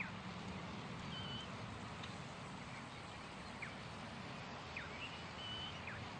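Birds chirping: several short chirps, some sliding quickly and a few brief held whistled notes, over a steady background hiss.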